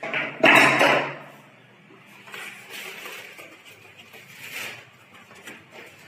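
A loud rushing noise for about a second near the start, then faint metal clinks and scraping from spanner work on the copper flare fittings.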